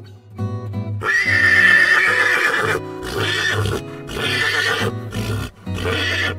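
Horse neighing: one long whinny starting about a second in, followed by three or four shorter pulses. Acoustic guitar music plays underneath.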